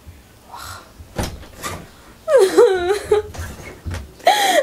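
A woman crying: a wavering, shaking sob-wail about halfway through and a second short cry near the end, after a couple of soft knocks.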